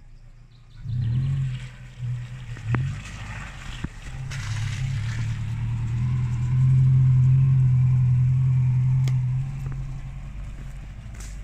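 Loaded Subaru Forester (SH) climbing a short dirt slope: its flat-four engine revs in short surges in the first few seconds, then pulls steadily under load, loudest about seven seconds in as the car passes, and eases off near the end.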